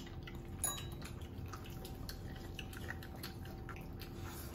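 People chewing and biting fried chicken: a run of small wet mouth clicks and smacks, with one sharper click about two-thirds of a second in, over a faint steady hum.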